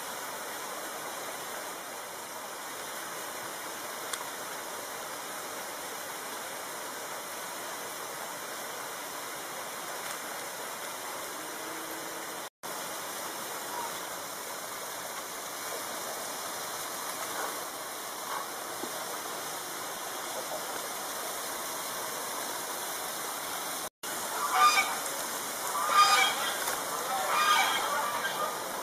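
Steady rushing background noise, broken twice by brief cuts, then a run of loud honking calls in the last few seconds.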